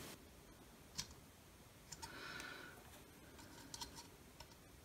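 Near silence with a few faint clicks of multimeter test-probe tips on a loudspeaker's terminals: one about a second in and a couple more near four seconds.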